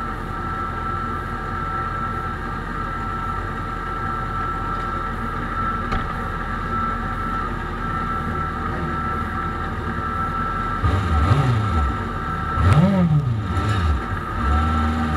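2009 Kawasaki ZX-6R's 600 cc inline-four idling steadily, picked up by a camera mounted on the bike. From about eleven seconds in, other sport bikes' engines rev up and down as they pull away down the pit lane.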